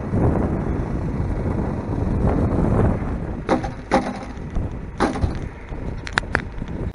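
Several sharp knocks and clatters, a quick run of them near the end, over a rumbling, gusty noise.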